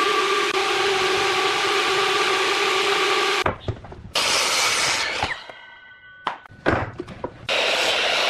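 A woodworking power tool's motor running steadily for about three and a half seconds, then cutting off, with a few short knocks and a brief high whine in the pause. It starts running again near the end.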